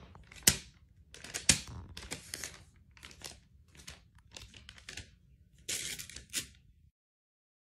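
Thin gift-wrap tissue paper crinkling and tearing in a capuchin monkey's hands, in a run of short rustling bursts with two sharp snaps about half a second and a second and a half in. A louder crinkly burst comes near the end, then the sound cuts off suddenly.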